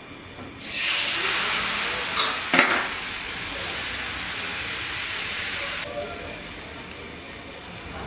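Thin rice batter sizzling in a hot pan: a dense hiss that starts suddenly just under a second in and cuts off near six seconds. A metal utensil clinks once against the pan about two and a half seconds in.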